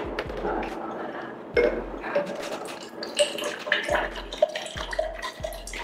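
Water pouring from a plastic bottle into a drinking glass, splashing and gurgling as the glass fills, with a sharp knock about one and a half seconds in as the bottle is handled.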